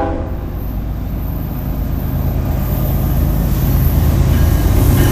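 Norfolk Southern diesel freight locomotives approaching, their engines' low drone growing steadily louder.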